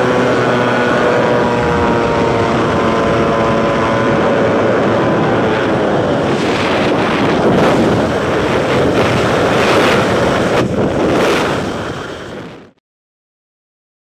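HM-1000 Balerit ultralight's engine and propeller running with a steady hum that sinks slightly in pitch and fades over the first few seconds, giving way to rushing wind buffeting the microphone in gusts. The sound cuts off abruptly about a second before the end.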